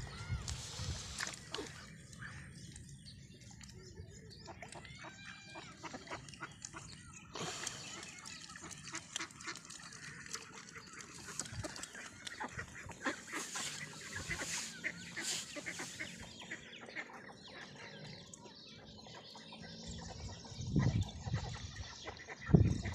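A flock of domestic ducks calling softly as they forage, with many small clicks and scuffles from bills and feet in mud and grass. There are a few louder bumps near the end.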